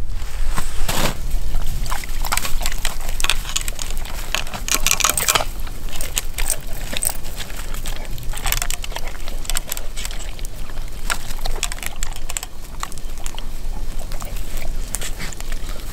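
Siberian husky eating a wet meat-and-pellet mash from a steel bowl: a continuous run of quick wet lapping and chewing smacks, busiest in a few spells, with the light clink of its tether chain.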